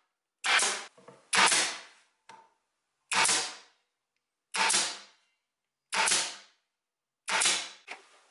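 Power staple gun firing staples through upholstery fabric into a wooden chair frame: six sharp shots about one and a half seconds apart, each fading quickly.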